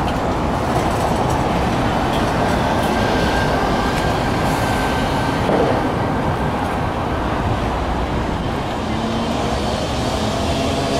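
City street traffic: buses and cars passing, with a steady low rumble and a faint whine near the end.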